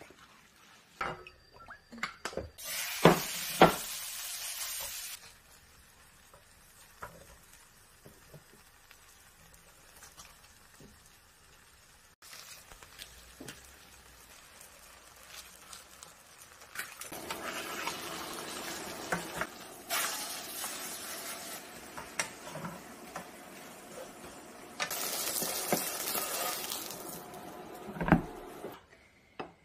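Octopus-and-chive pancake (buchujeon) frying in an oiled pan: a loud stretch of sizzling about three seconds in, quieter for a while, then steady sizzling over the last twelve seconds, rising louder twice. A few clicks at the start and a short low thump near the end.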